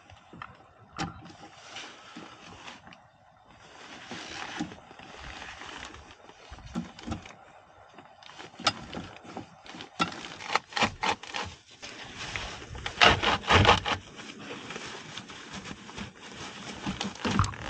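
Irregular scraping, rubbing and sharp knocks of hands-on work with tools, with a quick run of loud knocks about thirteen seconds in.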